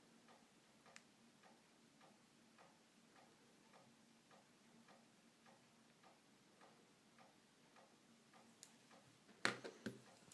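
Faint, steady ticking, just under two ticks a second, with a sharp click about nine and a half seconds in.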